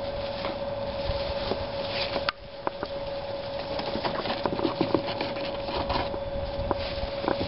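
Dry hay rustling and small handling clicks around a baby prairie dog as it is picked up by hand, over a steady humming tone. The background level drops suddenly a little over two seconds in.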